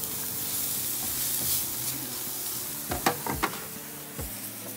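White onion sizzling in hot oil in a pan as it is sautéed and stirred, with a few sharp knocks of the utensil against the pan about three seconds in.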